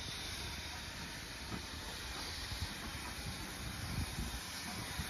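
Steam locomotive letting off steam: a steady hiss, a little stronger two to three seconds in, over a low irregular rumble of wind on the microphone.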